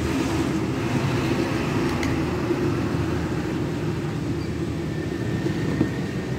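Steady rumble of road traffic going by close at hand, with a faint thin whine joining about five seconds in.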